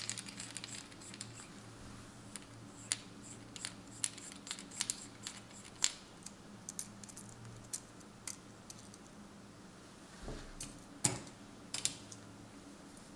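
Small precision screwdriver backing out the T4 screw that holds an HTC One M9's main board down: scattered light clicks and ticks at uneven intervals, with a few louder clicks near the end, over a faint steady hum.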